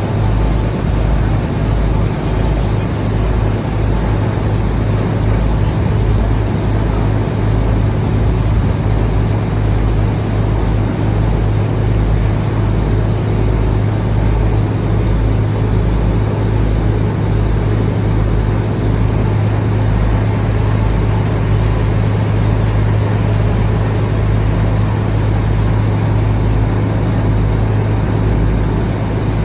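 River ferry's engine running, a loud steady low drone with a fluttering throb beneath it.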